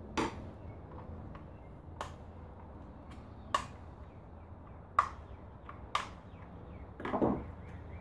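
Sharp plastic clicks and knocks from a door lock actuator housing being handled and pressed back together, one every second or two, with a longer, louder rattle near the end.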